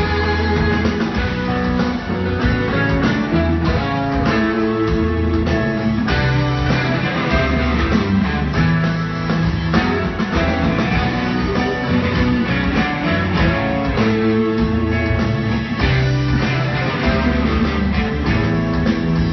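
Live rock band playing at full volume, guitars to the fore over a moving bass line.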